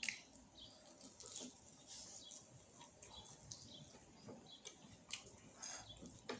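Faint close-up chewing and wet mouth sounds of a person eating a soft bread roll: scattered small smacks and clicks, with a sharper click at the very start.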